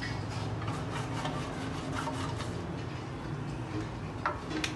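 Faint rubbing and light ticks as oil is brushed around the inside of a metal cake tin and the brush is dipped in a glass bowl of oil, with a couple of sharper light taps near the end, over a low steady hum.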